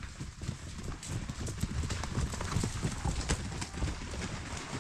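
Irregular clopping footfalls on a trail: a run of sharp knocks, louder in the middle.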